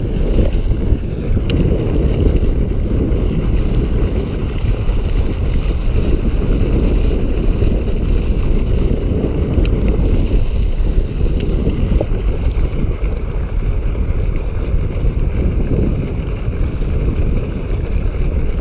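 Wind buffeting the microphone in a steady, rough rumble, over the rush of water churning at the canal's edge.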